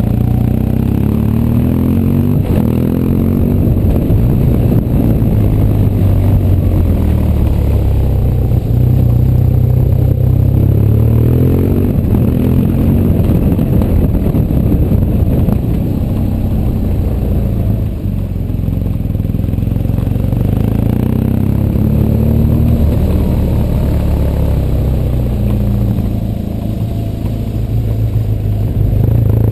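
BMW R1200GS flat-twin boxer engine running under way, its pitch rising and falling several times as the bike speeds up and slows through the hairpin bends. Under it, a steady rush of wind and tyre noise on cobblestones.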